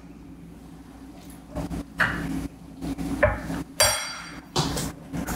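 Stainless steel ladle and spoon clinking and knocking against stainless steel pots as the chowder is stirred and ladled, with one ringing metal clang about four seconds in. A low steady hum runs underneath.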